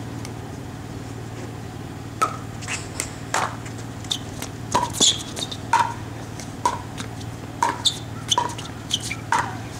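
Pickleball paddles hitting a plastic pickleball back and forth in a doubles rally: a string of short sharp knocks about once a second, starting about two seconds in, over a steady low hum.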